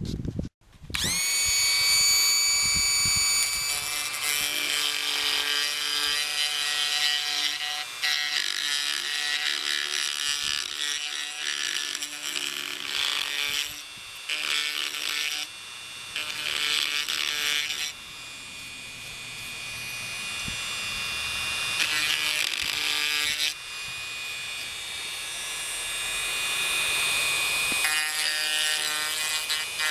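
Dremel rotary tool switched on about a second in, its whine rising as the motor spins up, then running at high speed while a small carving bit grinds cured Flex-Tec HV epoxy filler in a wooden joint. The grinding comes and goes in bursts as the bit bears on the epoxy and lifts off.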